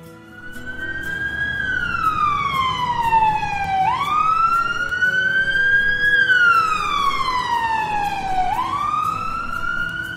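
Ambulance siren wailing: one tone sliding slowly up and then down, repeating about every four and a half seconds. It starts about half a second in.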